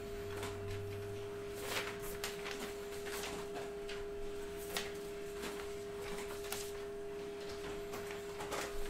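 A steady, unchanging electronic tone, like equipment whine, with soft paper rustles and handling clicks as printed sheets are shuffled.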